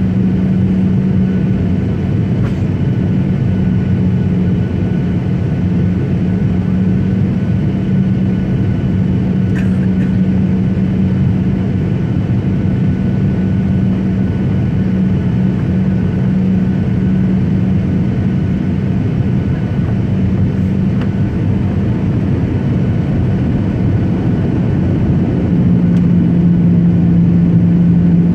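Airliner cabin noise on the approach to landing: a steady drone of engines and rushing air with a constant hum. About 25 seconds in, the hum drops a little in pitch and the noise grows louder, a change in engine power.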